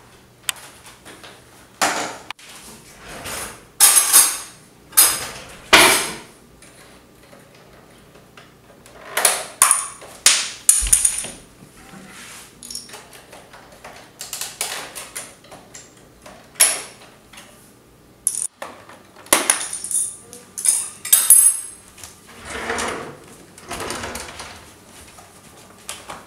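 Someone rummaging: rustling of paper and knocks and clatter of a keyboard and small objects moved about on a stone kitchen counter, in irregular bursts with short pauses between them.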